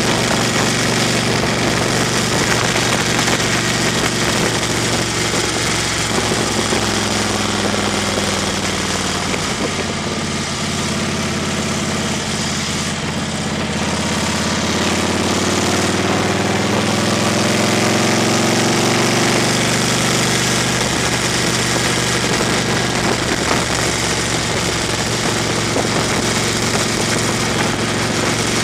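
Car driving on a gravel road, heard from inside the cabin: steady engine hum over a constant rush of tyre noise on the gravel. The engine note drops about a quarter of the way in, then climbs again around the middle.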